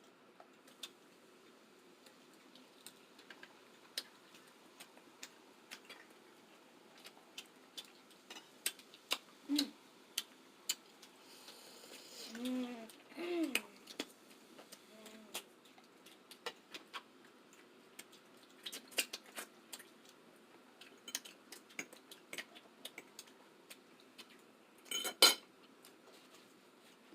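Eating a seafood boil: scattered clicks, taps and clinks of cutlery and dishes. A few short vocal sounds come in the middle, and one louder crackling burst comes near the end.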